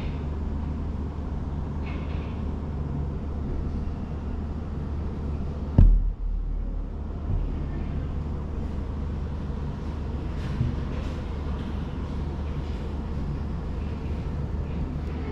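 Steady low rumble, with one loud thump a little under six seconds in.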